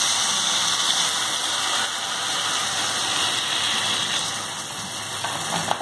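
Water poured into a hot kadai of fried masala, soya chunks and potato, hissing and sizzling loudly as it hits the oil, easing off after about four and a half seconds. A few short spoon clicks against the pan near the end.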